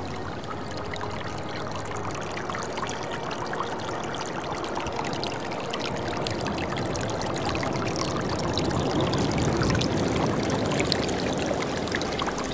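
Ocean surf washing in and draining back with a fizzing crackle of water, swelling to its loudest about nine to ten seconds in.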